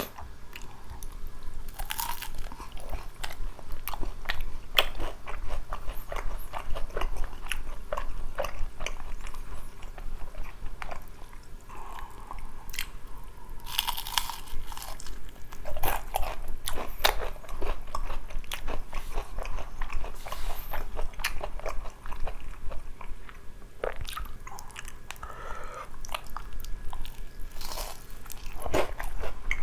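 Close-miked crunching and chewing of fried chicken in spicy sauce: crisp bites and a steady crackle of chewing, with several louder crunchy bites along the way.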